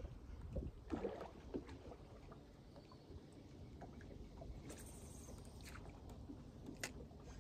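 Faint water lapping against a bass boat's hull, with a few light clicks and knocks scattered through it and a short hiss about five seconds in.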